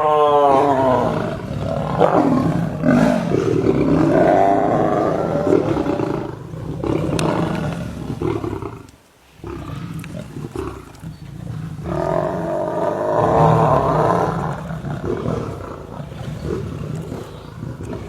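Lions roaring during a fight, in several long, loud bouts with a short break about halfway through.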